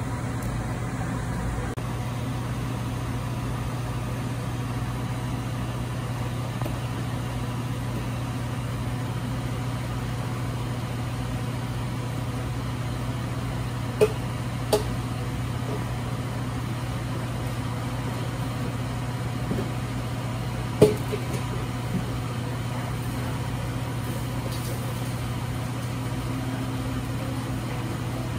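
Steady low hum of kitchen machinery beside a flat-top griddle, with a few sharp metallic clinks of utensils against the steel: two around the middle and a louder one about two-thirds through.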